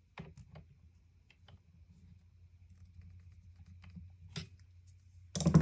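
Small scattered clicks and ticks of chainsaw parts being handled as a fuel line is worked back onto its fitting by the carburetor, ending in a louder short clatter near the end.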